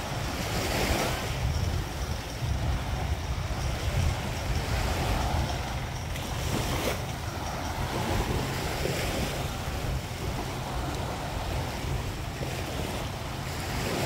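Waves breaking and washing up a sandy beach, the surf swelling and ebbing every few seconds, with wind buffeting the microphone in a low rumble.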